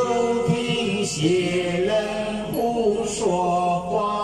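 A man chanting a Buddhist sutra to a slow sung melody, holding long notes that step from one pitch to the next about every second.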